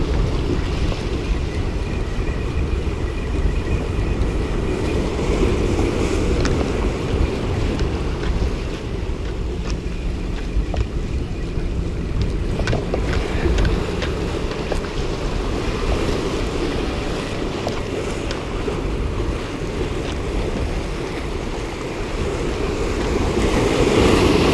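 Surf breaking and washing over jetty rocks, with wind on the microphone giving a steady low rumble. A bigger wave crashes about a second before the end.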